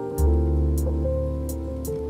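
Gentle instrumental background music: sustained chords, with a deep bass note coming in just after the start and a few light high ticks of percussion.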